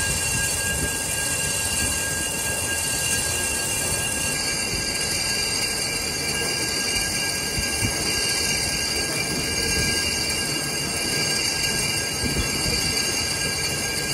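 Metal lathe facing a steel clutch plate: the tool bit cuts the spinning disc's face with a steady high whine over the lathe's running noise.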